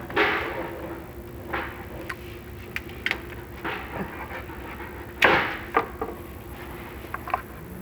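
Chimney inspection camera knocking and scraping against the creosote-coated flue tile as it is lowered, in irregular knocks with the loudest about five seconds in, over a low steady hum.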